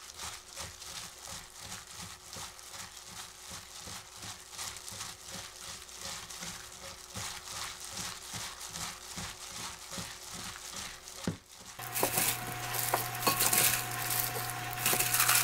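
A plastic-gloved hand tosses cucumber and onion pieces in chili seasoning in a glass bowl, giving soft, wet squishing and glove crinkling in a quick repeated rhythm. Near the end a faint steady hum comes in, with a few light clicks as the kimchi is moved into a glass container.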